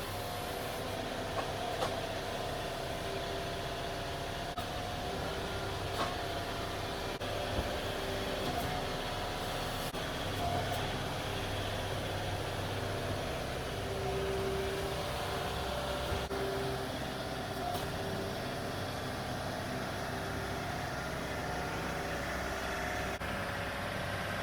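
Engine of a fork-equipped machine running steadily under load while lifting and carrying a rotted wooden structure, with a few short knocks and clicks now and then.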